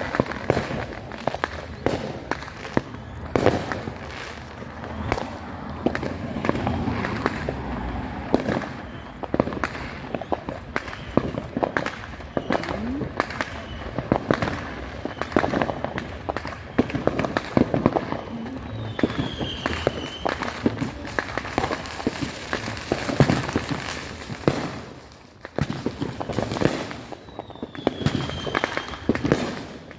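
Many fireworks going off at once: a dense, irregular run of sharp bangs and crackling pops, some louder and some softer, with no let-up.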